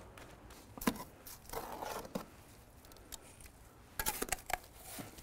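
Hot-lime mortar being mixed in a galvanised metal bucket with a wooden pole and a steel trowel: a single knock about a second in, a short scrape, then a quick run of clicks and scrapes of metal on the bucket near the end.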